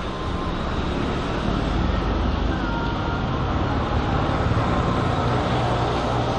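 Steady rumble of road traffic, with a few short faint tones above it.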